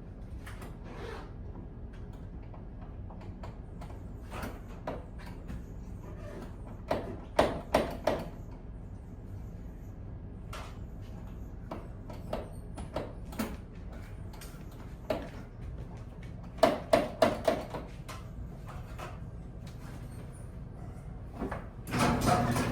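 Keys being worked in a Porsche 911's locks: scattered sharp metallic clicks and clacks, with quick runs of several clicks about 7 seconds and 17 seconds in. Near the end a steady low hum starts.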